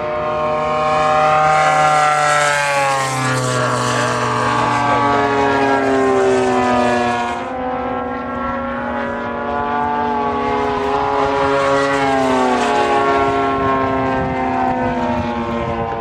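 Two 50cc two-stroke gas engines on large radio-control aerobatic planes buzzing overhead together. Their pitches rise and fall as the planes pass and change throttle, and they swell louder and fade back several times.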